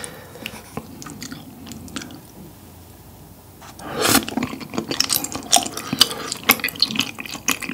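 Faint chopstick clicks while a tteokbokki rice cake is picked out of thick spicy sauce, then from about four seconds in, loud chewing of the chewy rice cake.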